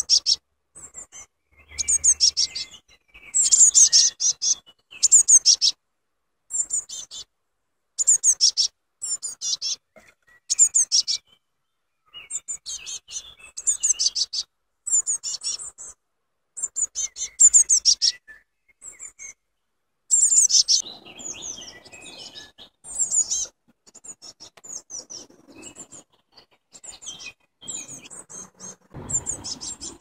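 Blue tit chicks calling from the nest box: loud bouts of rapid, high-pitched chirping, one bout every second or two with short gaps between.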